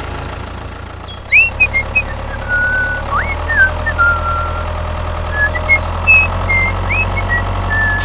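Tractor engine running steadily at a low, even speed. From about a second and a half in, short high whistled chirps and quick upward swoops come in over it.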